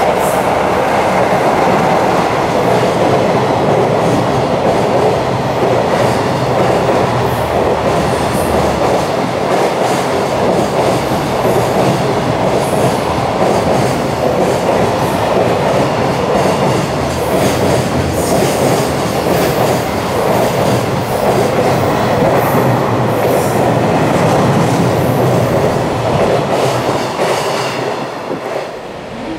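Long freight train of container wagons passing at speed, a continuous loud rumble of wheels on rail with clacking from the wheels, dropping away near the end.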